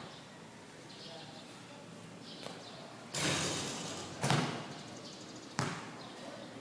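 Basketball bouncing on a hard court: a fairly quiet stretch, then a noisy swell about three seconds in lasting about a second, followed by two sharp bounces about a second and a half apart.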